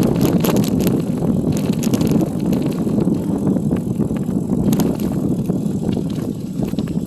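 Riding a bicycle on a forest road: a steady low rumble of tyres and wind on the microphone, with scattered light clicks and rattles.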